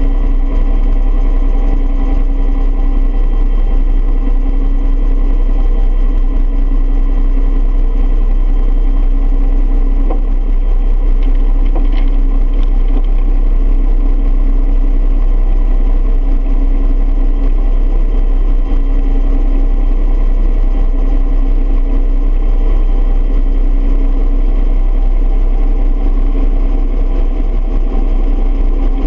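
A Bell UH-1 Huey helicopter's turboshaft engine and rotor running steadily: a deep, constant rumble with a steady whine on top, and no gunfire.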